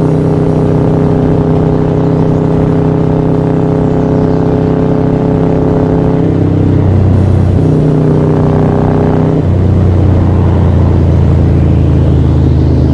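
Harley-Davidson Sportster 1200's stage 4-tuned V-twin running under way at cruising speed. The engine note steps lower a little past halfway, briefly picks up again, then settles lower and slightly louder as the rider changes speed.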